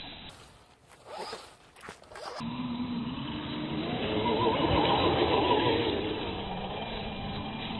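Losi Rock Rey RC truck's electric motor and gears whining as it drives, the pitch rising and falling with the throttle, over a rough rasp of tyres on the ground. Near the start there is a quieter break of about two seconds.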